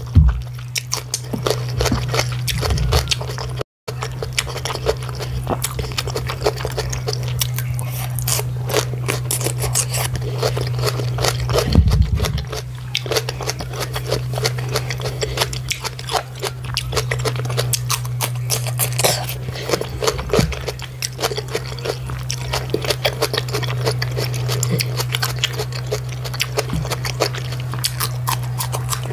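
Close-miked chewing of a mouthful of rice, tomato stew and chicken, with many small irregular mouth clicks and crunches. A bite into a slice of raw cucumber comes near the end. A steady low hum runs underneath.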